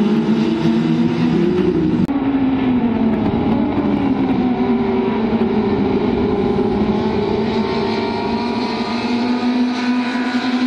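Several racing hatchback engines running hard together, their notes overlapping and rising and falling as the cars go through the corners. The sound changes abruptly about two seconds in.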